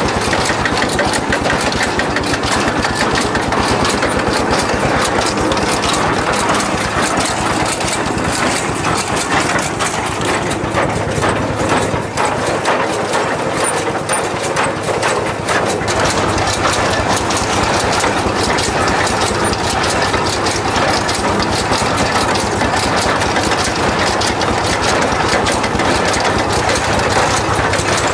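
DT-20 tractor's single-cylinder diesel engine running steadily, mixed with the dense, rapid clatter of a towed hay loader's mechanism as it lifts hay into the wagon.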